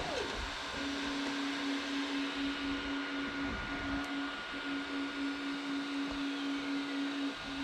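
Creality Ender 3D printer running: its cooling fans hiss steadily under a steady whine from the stepper motors, which drops out briefly a few times as the print head moves.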